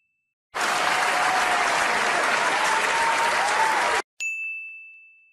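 A crowd clapping and applauding for about three and a half seconds, cutting off abruptly. A single bright ding follows and rings away.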